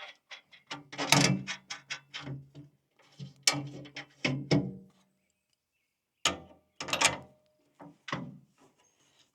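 Metal clicking and ratcheting in three bursts from work on a sawmill's lift-crank mechanism, as its big top nut is turned down or the crank is worked.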